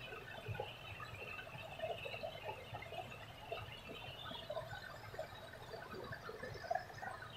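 Small stream splashing and gurgling where a low cascade pours into a muddy pool, with an irregular bubbling patter.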